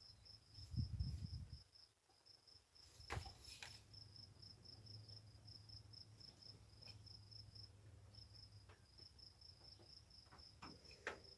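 A cricket chirping steadily, about four chirps a second. There is a low thump about a second in and a few faint clicks.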